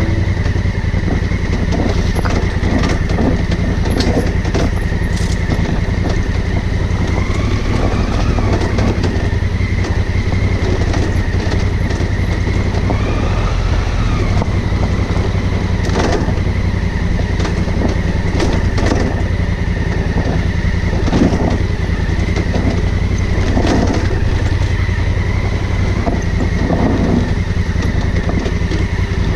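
Honda Africa Twin CRF1000L's parallel-twin engine running steadily on the move, under a constant heavy rumble of road noise, with a few short clicks and two brief pitch glides about a third and halfway through.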